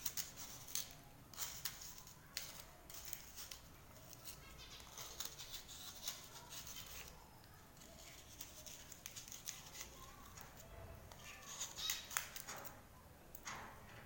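Knife blade scraping a cuttlefish bone, shaving off flakes in a run of short, irregular scratchy strokes.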